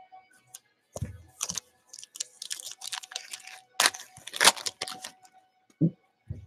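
Foil wrapper of a Prizm basketball card pack being torn open and crinkled: a flurry of crackling rustles with two sharper rips about four seconds in. A few dull knocks of hands against the table come before and after.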